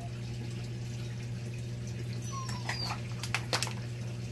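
A leaf lettuce plant being pulled from a vertical hydroponic tower: a few sharp crackles and rustles of leaves and roots tearing free, clustered between about two and a half and three and a half seconds in, over a steady low hum.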